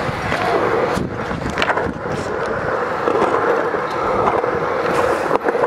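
Skateboard wheels rolling over concrete under a frying-pan deck: a steady rolling rumble with a constant hum, broken by a few sharp clicks.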